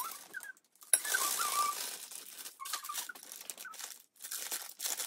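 Clear plastic piping bag rustling and crinkling in several bursts as thick Oreo churro dough is spooned into it, with light scrapes and taps of a metal spoon.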